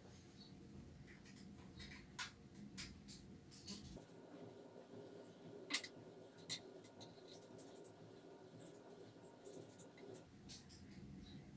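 Faint scattered clicks and light taps over a quiet background, with one sharper click about six seconds in and another soon after.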